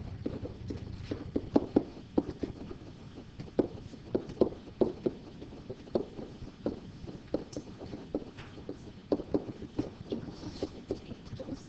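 Pen tapping and knocking on an interactive whiteboard as a line of text is handwritten: short, irregular knocks, several a second.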